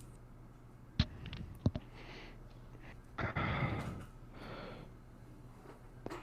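A few sharp clicks, then a breathy exhale close to the microphone.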